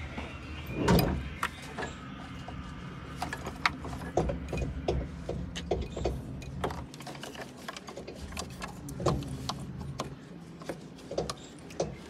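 Hands working on parts in a small van's engine bay around the air intake and throttle body: a busy run of irregular plastic and metal clicks, knocks and rattles, with a louder thump about a second in and another near nine seconds.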